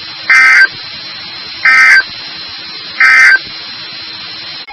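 NOAA Weather Radio SAME end-of-message code: three short, loud bursts of warbling two-tone digital data, about 1.4 seconds apart, over steady radio hiss. It marks the end of the severe thunderstorm warning message.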